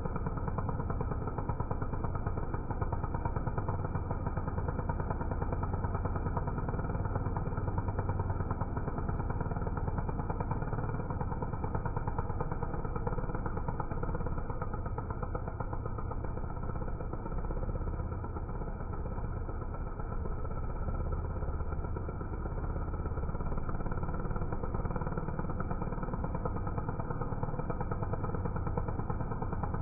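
Chainsaw engine running continuously while cutting wood.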